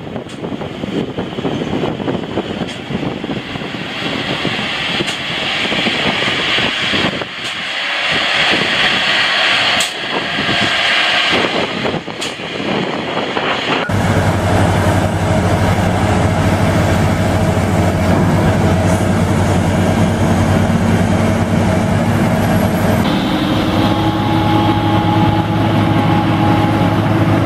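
A snow plow truck forcing its blade through deep drifted snow, its engine and the rushing of pushed snow making a rough, noisy roar. About halfway through, this gives way abruptly to a rotary snow blower's engine running under load with a steady low hum. Near the end it switches to another rotary snow blower throwing snow, its engine droning steadily.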